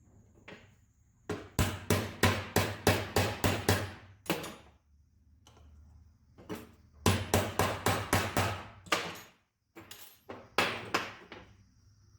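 Hammer blows in quick runs, about three a second: a run of about eight, a pause, another run of about eight, then a few single blows near the end. This is part of replacing the outer bearing on a Fiolent MF4-1100E router.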